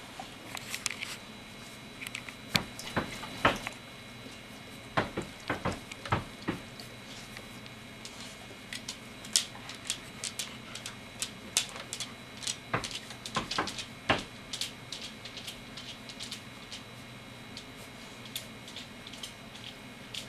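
Irregular light clicks and knocks as a litter of three-week-old golden retriever puppies crowd round and jostle a plastic dish. They come thickest in the first two thirds and thin out near the end.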